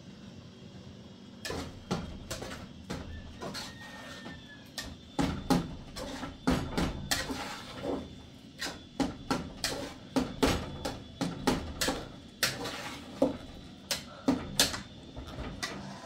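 A metal spoon clinking and scraping against a steel cooking pot as food is stirred, in a run of irregular knocks that starts about a second and a half in and grows louder in the second half.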